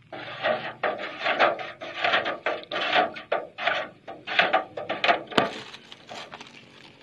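Wooden stick stirring water in a metal watering can: irregular swishing and sloshing, two or three strokes a second, with knocks of the stick against the metal and one sharp knock about five seconds in, dying down near the end. The stirring dissolves NPK fertilizer in the water.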